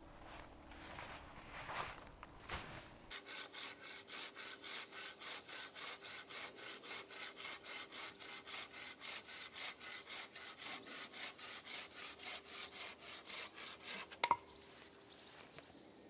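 Hand saw cutting through a dead pine log with quick, even back-and-forth strokes, about four a second. The sawing stops near the end, followed by a single sharp crack.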